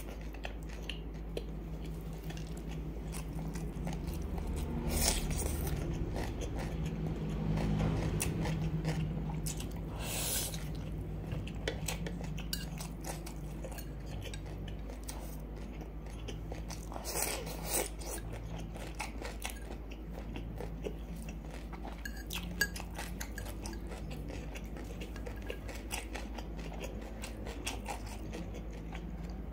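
Close-miked eating: chewing and biting of noodles, grilled pork sausage and crisp cucumber, with a few sharp crunches about 5, 10 and 17 seconds in. A fork now and then clinks and scrapes on the ceramic plate.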